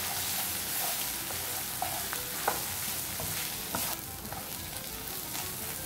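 Diced onion and spices frying in clarified butter in a nonstick pan while a silicone spatula stirs them: a steady sizzle with light scraping ticks of the spatula against the pan.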